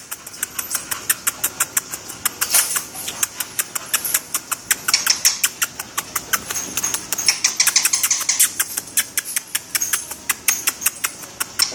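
A pit bull walking on a terrazzo floor with a metal chain leash on its collar: the chain clinks and drags and the claws click on the hard floor, a steady run of sharp clicks about four or five a second.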